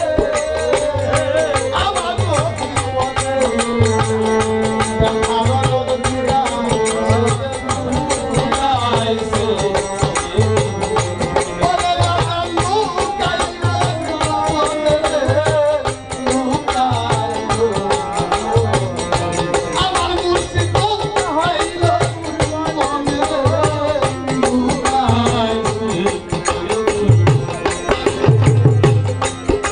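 Live Bengali baul folk music: low drum beats about once a second under a moving melody line.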